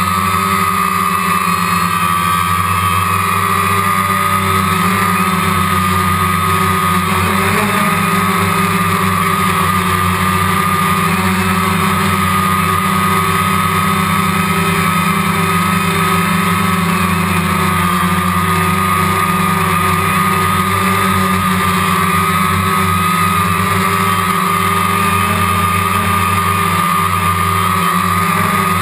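DJI Phantom quadcopter's motors and propellers running steadily in flight, a constant hum with a strong high whine that hardly changes pitch. It is heard through the waterproof case of the GoPro mounted on the drone.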